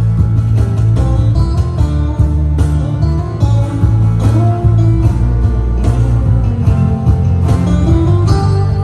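Live instrumental music: plucked acoustic guitar over a steady, heavy low end.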